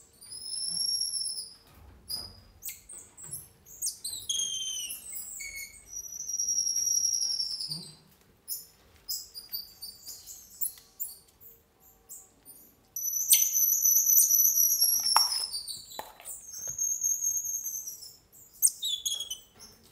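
Emperor tamarins calling: high, thin, drawn-out whistles of a second or two each, several sliding downward at the end, mixed with quick sharp chirps.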